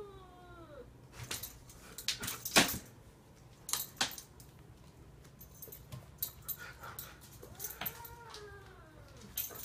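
An animal's drawn-out cry that rises then falls in pitch, dying away in the first second and heard again near the end. Between the cries come scattered sharp clicks and knocks, the loudest about two and a half seconds in.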